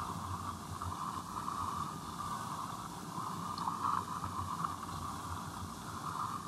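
Steady hiss and line noise of an old home tape recording of a telephone call, strongest in a narrow middle band, with a low rumble beneath.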